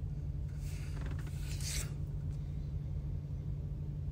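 Steady low hum of an idling truck heard inside the cab, with a brief rubbing, scraping noise from about half a second to two seconds in.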